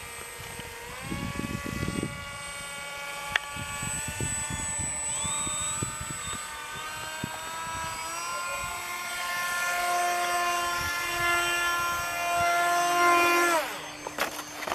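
Radio-controlled F-22 model jet's motor whining in flight. Its pitch steps up about a second in and again past the middle as the throttle is opened, then drops sharply near the end as the throttle is cut. About a second in, wind buffets the microphone briefly.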